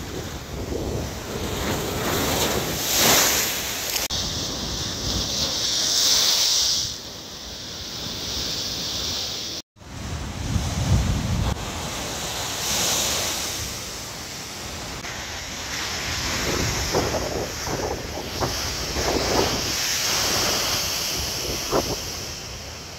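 Large waves breaking and crashing against a concrete seawall at high tide, in repeated surges of spray and surf, with wind buffeting the microphone.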